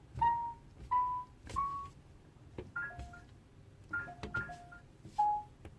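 Whirlpool WTW7500GC washer's control panel beeping as cycles and options are selected: about seven short beeps. The first three step up in pitch, and the later ones are quick two-tone chirps, with faint clicks between them.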